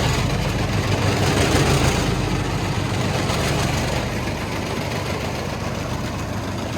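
Diesel engine of a Vögele Super 1803-3i asphalt paver running steadily at idle, easing off slightly toward the end.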